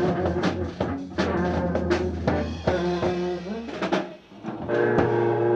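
No-wave rock band playing, with drum kit strikes over held guitar and bass notes. The band drops out briefly about four seconds in, then comes back on a loud held chord.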